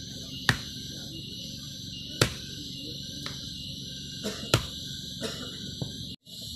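A blade chopping into firewood on the ground: three sharp chops about two seconds apart, the last the loudest, with a few lighter knocks between. Insects trill steadily behind.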